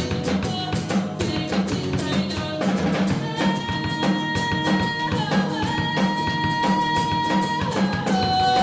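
Live band music: a drum kit keeps a steady beat, and from about three seconds in long held melody notes ring over it, stepping down to a lower note near the end.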